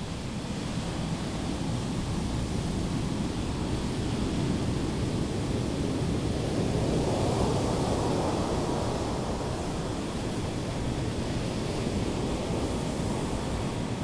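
Ocean surf washing onto a sandy beach, a steady rush of breaking waves that swells to a peak about halfway through and then eases off.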